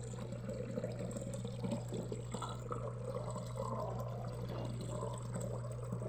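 Consul 12 kg washing machine draining: soapy water runs steadily out of its drain hose, over a steady low hum.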